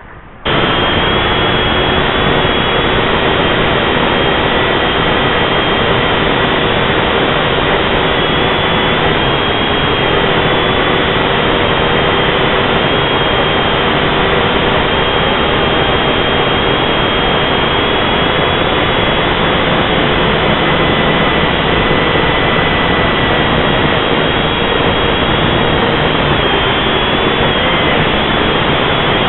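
Small camera drone's electric motors and propellers running steadily in flight, heard close up from the drone's own camera: a loud, even whirring with several steady whining tones that waver slightly. It starts abruptly about half a second in.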